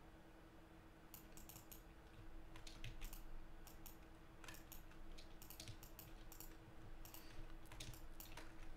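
Faint, irregular clicking and tapping of a computer keyboard and mouse in small clusters, over a low steady hum.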